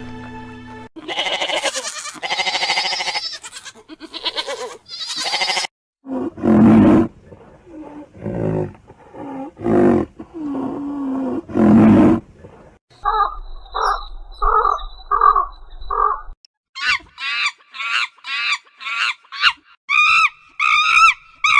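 Different animal calls, one after another: loud, deep calls repeated several times in the middle, then a set of evenly spaced calls, and near the end a fast run of short, pitched calls.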